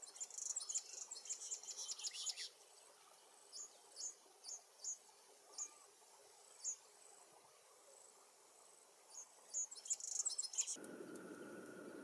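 High-pitched chirping over a thin, steady high whine. A quick run of chirps is followed by single chirps spaced every half second or so, then another quick run. About a second before the end the background changes abruptly to a steady lower hiss with a faint hum.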